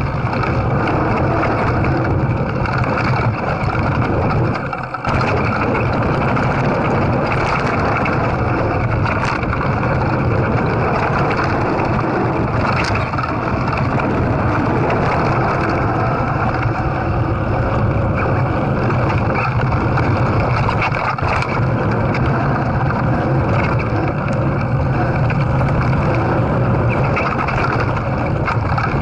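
Calibre Bossnut mountain bike rolling along a dry dirt trail, heard from a camera on the bike: a steady rumble of tyres on dirt and gravel mixed with wind on the microphone, with a few sharp knocks from bumps. The noise dips briefly about five seconds in.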